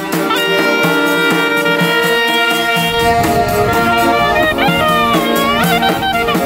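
Albanian saze folk ensemble playing live: clarinet holding a long note, then bending pitch in ornamented runs, over accordion and the steady beat of a dajre frame drum.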